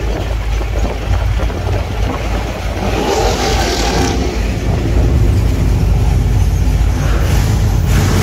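Engine and road noise of a moving car heard from inside it: a steady low rumble with a brief swell about three seconds in, growing louder about five seconds in as it drives into a concrete tunnel.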